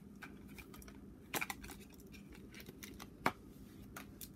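Faint clicking and light rustling of a toy pacifier's plastic packaging being handled and opened, with two sharper clicks, about a second and a half in and again past three seconds.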